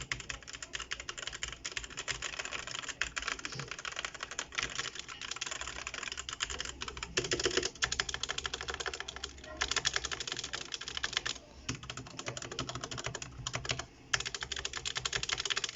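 Fast typing on a Zet Blade mechanical keyboard with Kailh Red linear switches: a dense run of key clicks and clacks, with brief pauses now and then.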